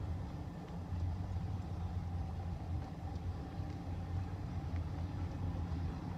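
Motor vehicle engine running steadily: a low, even hum with no change in pitch.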